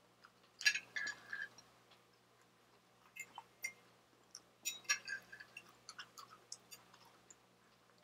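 Metal fork clinking and scraping on a ceramic plate while picking up fish and rice: two clusters of sharp, briefly ringing clicks, about a second in and again near the middle, then scattered lighter ticks.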